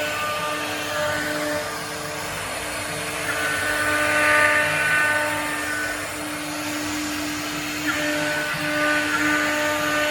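CNC router's spindle running at high speed and cutting wood, a steady whine with a hiss that swells about four seconds in and again near the end as the bit works through the cut.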